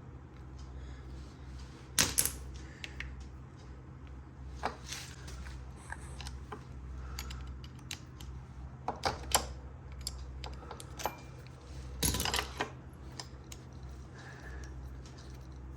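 Scattered metallic clicks and clinks of hand tools and small brake-linkage parts being handled, with louder rattling clusters about two seconds in, around nine seconds and around twelve seconds, over a steady low hum.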